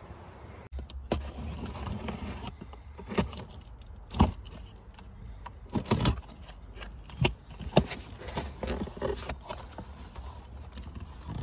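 A large cardboard box being opened by hand: scattered knocks, scrapes and crackles as its tape and flaps are pulled, over a steady low rumble.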